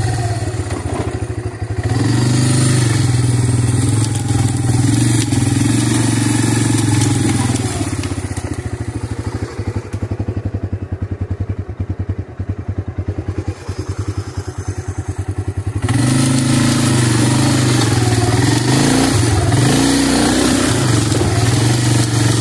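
Three-wheeler engine running as it is driven along a trail. Partway through it drops to a slow, even putter for several seconds, then picks back up to its fuller running sound.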